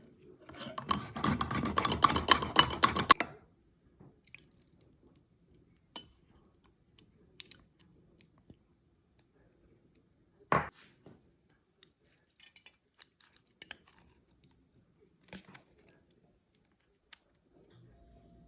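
Kitchen handling sounds: about two seconds of dense crunching and rattling near the start, then scattered light clicks and taps of utensils and dishes, with one sharper knock about ten and a half seconds in.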